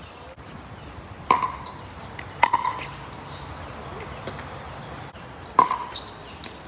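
Pickleball paddles knocking a hollow plastic pickleball: three sharp, ringing pocks, about a second in, around two and a half seconds in and near the end, with a few fainter ticks between them.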